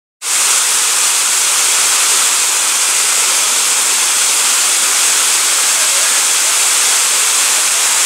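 Waterfall spilling over rock tiers into a pool: a steady rush of falling water, bright and hissy, cutting in abruptly just after the start.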